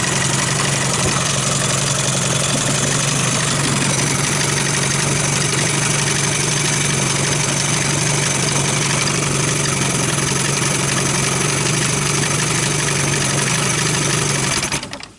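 Johnson/Evinrude two-stroke outboard motor running steadily at idle, then dying away near the end.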